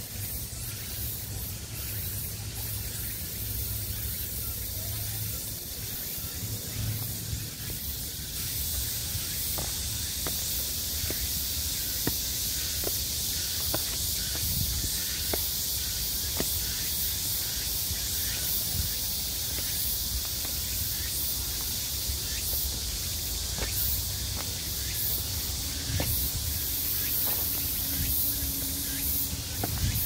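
A steady high-pitched hiss of forest outdoor sound, growing louder about eight seconds in, with soft footsteps about once a second along the trail.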